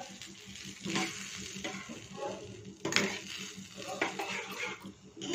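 Steel spoon stirring vermicelli in bubbling water in a steel kadai, scraping and clinking against the pan over a steady sizzle. The sharpest clinks come about a second in and again about three seconds in. The roasted vermicelli is cooking down in the water.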